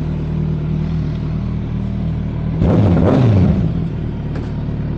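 Kawasaki Z900 inline-four motorcycle engine running steadily, then revving up sharply for about a second just past halfway before settling back to a steady run.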